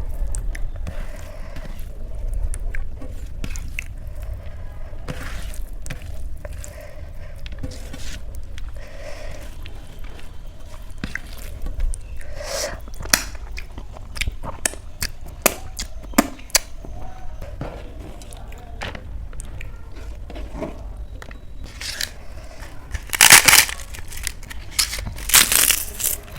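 Close-miked eating sounds: chewing and small wet mouth clicks throughout, with loud crunching bites about three-quarters of the way in and again near the end.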